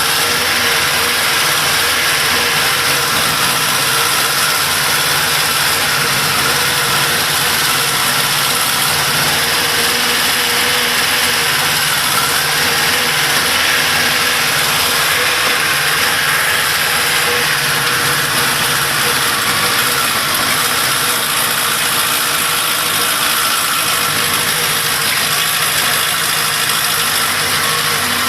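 Honda CB1000 Big One's inline-four engine idling steadily, with a mechanical noise in it that the owner finds suspect on a 95,000 km engine.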